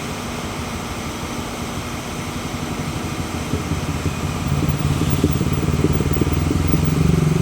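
A motor vehicle's engine running, with rapid low firing pulses and a steady low hum, growing steadily louder over the second half as it comes closer or works harder.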